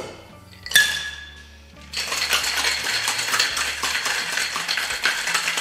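A metal shaker tin clinks as it is pressed onto the mixing glass of a Boston shaker, then ice cubes rattle steadily inside it as the cocktail is shaken hard, starting about two seconds in.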